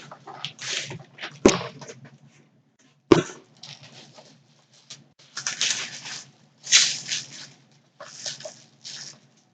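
Cardboard mystery box and its packing being handled and pulled open: repeated rustling and scraping, with two sharp knocks about a second and a half and three seconds in.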